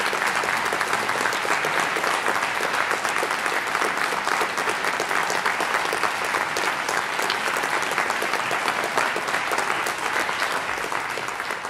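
Concert audience applauding steadily with dense, continuous clapping.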